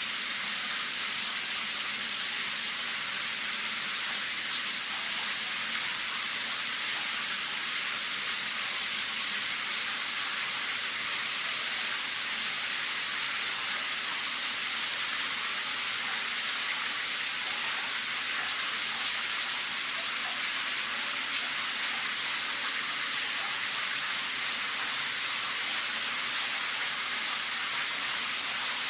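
Shower running steadily, water spraying from the shower head and splashing down as a constant hiss.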